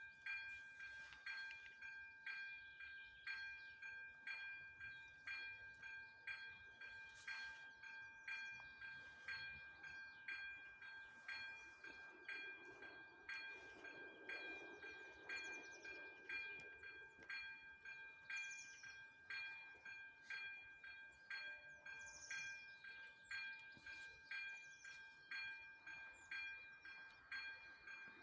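Electronic ZV-02 warning bell of an AŽD 97 railway level crossing ringing while the crossing is active: an even, repeating chime-like strike about one and a half times a second over a steady ringing tone.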